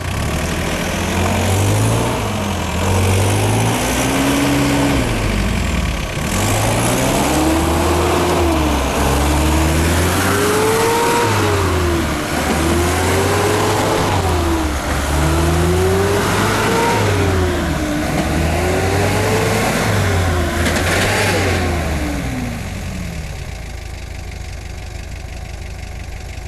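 Off-road 4x4 under load, its engine revving up and down again and again about every two to three seconds. A gear whine from the transfer case rises and falls with each rev. It settles to a quieter, steady running near the end.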